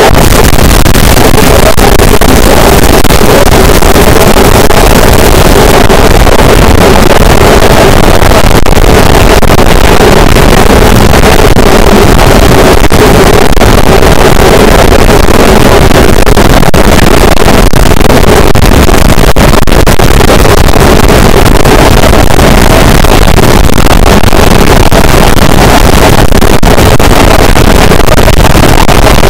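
Harsh noise wall: a dense, unchanging wall of distorted static at full loudness, with a heavier layer in the lower middle of the range and no rhythm or pauses.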